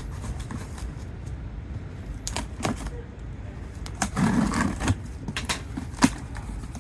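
Packaging being handled and pulled apart: scattered clicks and knocks with a burst of rustling about four seconds in and a sharp click near six seconds, over a steady low hum.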